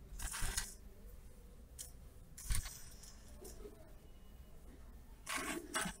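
Handling noise from a small wooden demonstration rig: three brief scraping, rustling bursts, one about two and a half seconds in carrying a low knock, over a faint steady hum.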